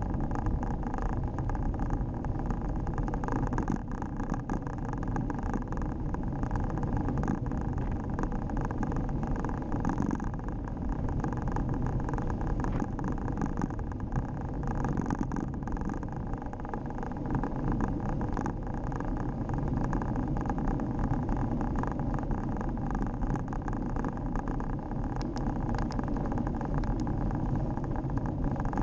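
Steady riding noise from a Scott X40 cross-country mountain bike on a tarmac road: wind buffeting the microphone and tyre rumble, with small rattling ticks from the bike throughout.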